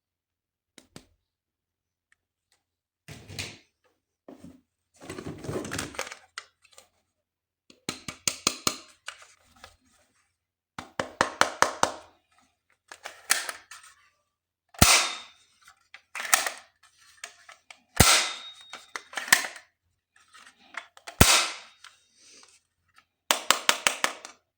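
Hard plastic toys and packaging being handled: irregular bursts of clicks, rattles and taps, with rapid runs of clicks and three sharp, loud snaps.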